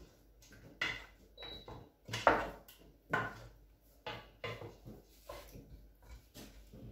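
Wooden spoon stirring a wet mixture in a stainless steel pot, knocking and scraping against the pot in a string of short strokes about once a second, the loudest about two seconds in.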